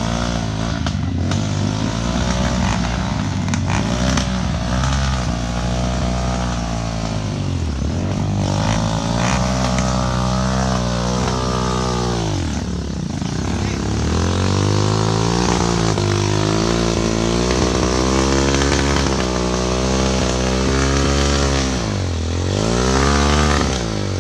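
Enduro motorcycle engine being ridden on a trail. Its revs rise and fall continually with the throttle, and the pitch drops sharply and climbs again three times as the rider backs off and gets back on the gas.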